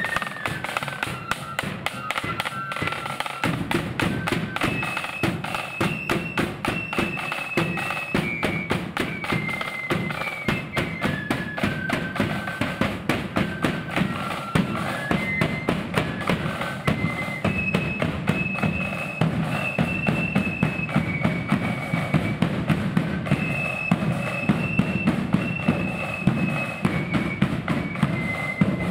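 Blood-and-thunder marching flute band playing a tune: flutes carry the melody over rapid snare drumming and a bass drum, with the low drumming growing heavier a few seconds in.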